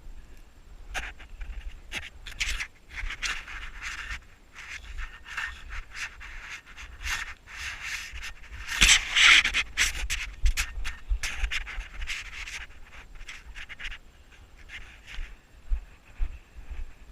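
Crunching and scraping in deep snow, with irregular rubbing noise, loudest about halfway through. Wind rumbles on the microphone underneath.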